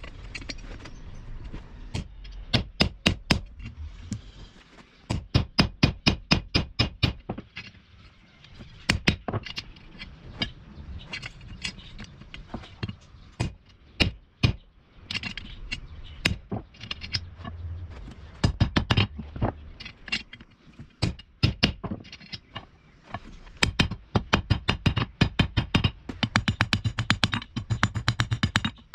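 Hammer striking spring steel on an anvil while forging, in quick runs of sharp blows, about five a second, with short pauses between runs.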